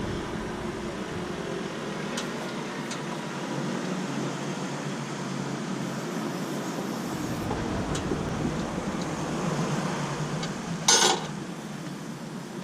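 A car jack and jack stand being worked under a car: scattered light metal clicks over a steady background hiss, and one loud, short clank about eleven seconds in.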